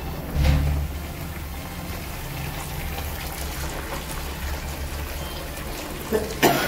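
Water streaming from a hose into an overflowing bucket of foam, splashing steadily, as dirty water and sediment are flushed out of a water tank. A low bump about half a second in and a sharp knock near the end.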